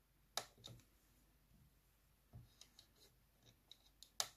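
Faint clicks of the Soundmy G-310W digital piano's panel buttons being pressed, about ten light taps scattered over the few seconds, as the voice selection is stepped through the brass tones.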